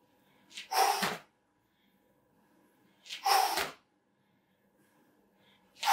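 A person's sharp, forceful exhalations, three short bursts about two and a half seconds apart, breathed out hard with each effort of a cardio or boxing drill.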